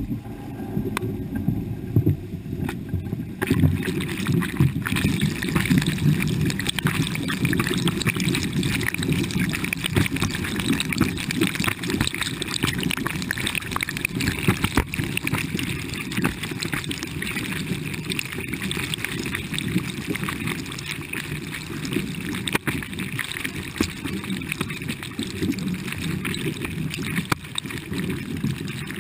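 River water sloshing and gurgling against a camera held at the surface, with a brighter splashing hiss joining a few seconds in as the water washes over the lens.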